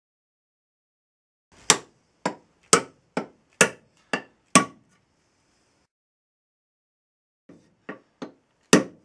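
Hammer blows driving a steel axe head down onto a new ash handle to seat it on the handle's taper: a run of seven hard strikes about two a second, a pause, then three lighter taps and one hard blow near the end.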